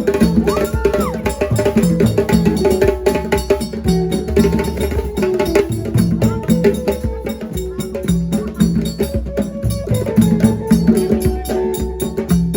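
Music driven by drums and sharp wood-block-like percussion strikes in a steady repeating rhythm, over sustained pitched instrumental lines.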